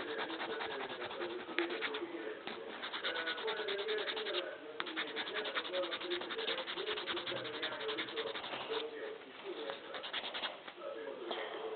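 A flat metal blade scraped rapidly back and forth against a small black plastic Lego piece to trim it down: runs of quick, fine scraping strokes with a few short pauses.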